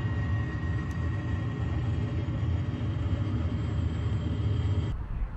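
Jet airliner engines running: a steady low rumble with a thin high whine. It cuts off abruptly near the end.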